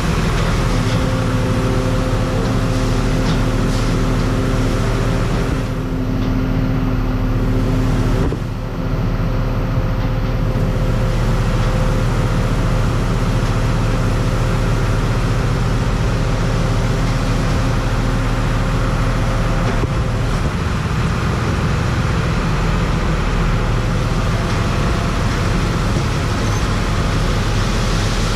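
Large diesel farm-machinery engine running steadily under load, with a steady hum throughout and a brief dip in tone about six to ten seconds in.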